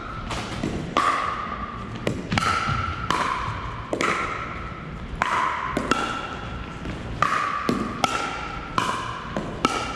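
Pickleball paddles striking the hard plastic ball back and forth in a rally. Each hit is a sharp pock with a short ringing tone, coming about every half second to a second and echoing in the gym.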